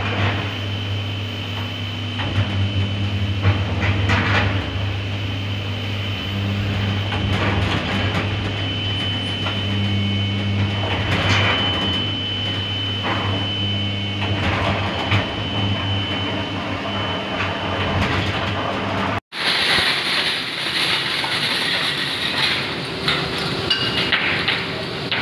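Steel-melting furnace running with fire pouring from its top: a steady deep hum with a thin high whine above it and irregular crackles. After a sudden cut about three-quarters of the way through, a harsher, hissing rush takes over.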